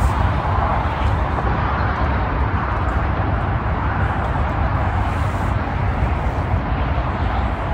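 Steady outdoor background noise: a continuous rumble and hiss with no distinct events.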